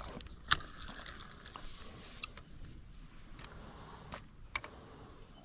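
Insects trilling steadily in a high, evenly pulsing chorus, with a few short sharp clicks scattered through it.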